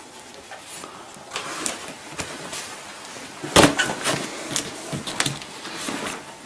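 Large cardboard box being handled and tipped onto its side, with scraping and knocks and one loud thump about three and a half seconds in.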